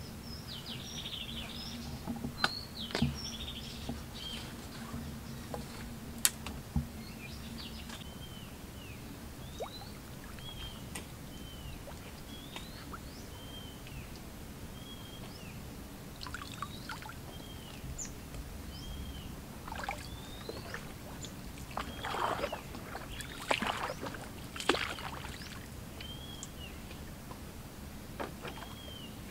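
Wooden boat being paddled: paddle splashes and water sloshing, with a few sharp knocks of wood on wood, and a cluster of louder splashes about three-quarters of the way through. A bird repeats a short down-slurred call about once a second through the middle part.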